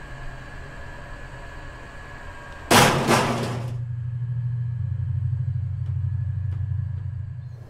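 Elevator car running with a steady hum and a faint high tone, broken about three seconds in by a sudden loud bang and rattle, the car jolting. A low steady drone follows and cuts off just before the end.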